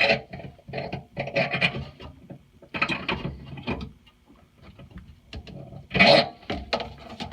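A bent 9/16 wrench tightening the faucet's mounting nut under the sink: irregular scraping and rubbing in a series of short strokes, the loudest about six seconds in.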